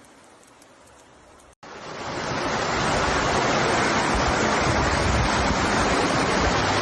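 Faint steady hiss, then after a cut about a second and a half in, a loud, steady rushing of water that swells over about a second and holds, like floodwater pouring or surging.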